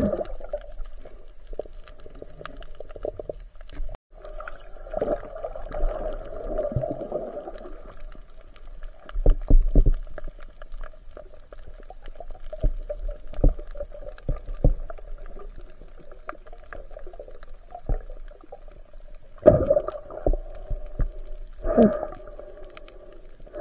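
Muffled underwater sound picked up by a submerged camera: a steady hum with scattered knocks and several louder gurgling swells of water and bubbles.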